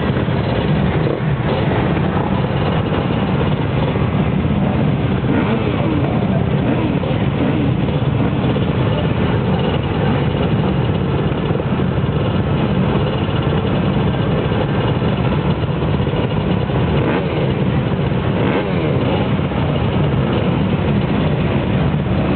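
A pack of motocross bikes running together on the starting line, many engines idling and revving at once in an unbroken din with throttles rising and falling.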